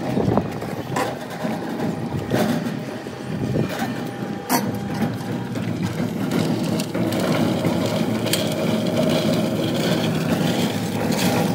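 Drum concrete mixer running steadily, with irregular knocks of the concrete mix tumbling in the turning drum. From about two-thirds of the way through, the tipped drum pours the mix out onto the ground and the sound grows fuller.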